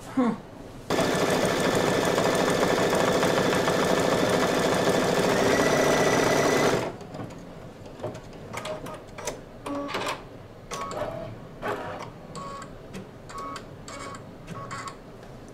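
Brother single-needle embroidery machine stitching at speed, a loud steady rattle of needle strokes for about six seconds, then stopping abruptly and going on in shorter, softer stop-start bursts.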